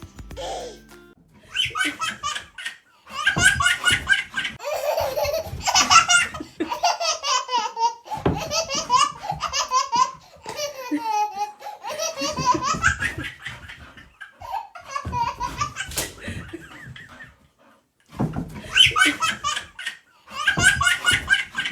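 A baby laughing in repeated bursts, with short pauses between them and a longer pause near the end.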